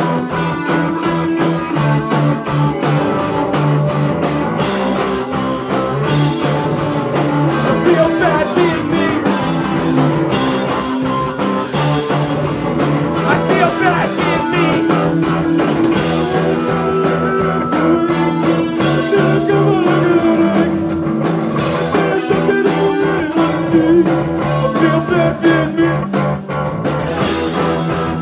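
Punk rock band playing live: electric guitar, bass guitar and drum kit, with a singer's vocals over them.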